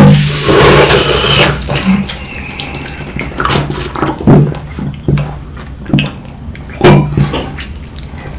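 Green marble soda in a glass Codd-neck bottle fizzing and foaming over at the start. Then it is drunk in gulps, with short, sudden wet sounds, the loudest about four and seven seconds in.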